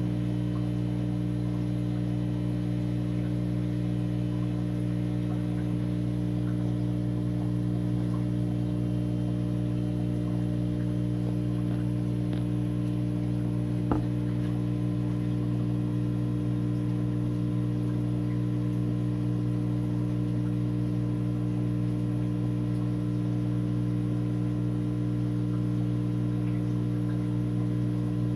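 Steady mains hum from the aquarium's running equipment, with one sharp click about halfway through.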